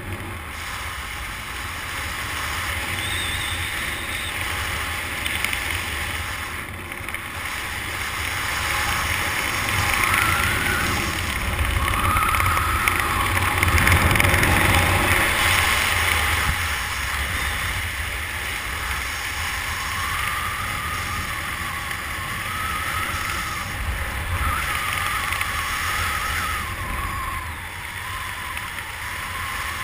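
Wind rushing over the microphone under an open parachute canopy: a steady low rumble of air that swells and eases in gusts, loudest around the middle.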